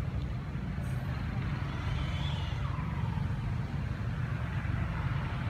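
A steady low rumble with no clear source, with a faint gliding whistle-like sound about two seconds in.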